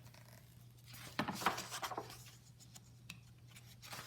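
Paper rustling as the pages of a picture book are handled and turned: a burst of scratchy rustling about a second in, then a few light ticks, over a low steady hum.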